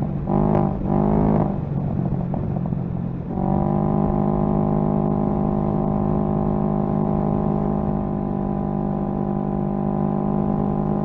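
Can-Am Ryker 600's Rotax twin-cylinder engine running at highway speed, with low wind rumble. Its note wavers up and down for about the first three seconds, then settles into a steady drone at cruising speed.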